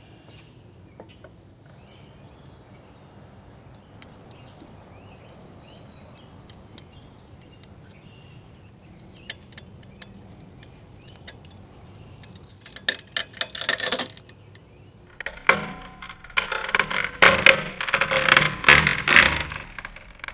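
Plywood twisted in a vise cracking and splintering as it fails: a few sharp cracks about two-thirds of the way through, then a loud run of crackling and snapping for about four seconds near the end.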